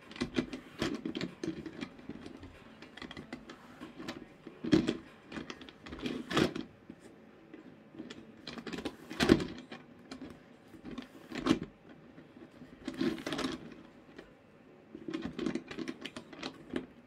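Cloth rustling, with irregular small clicks and a few sharper knocks, as hands fit and handle fabric on a stuffed rag doll.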